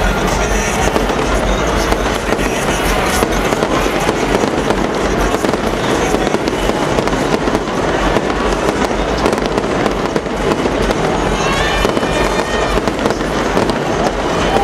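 Fireworks going off in a dense, continuous barrage: rapid crackling and popping from many bursting shells and firecrackers, with no pause.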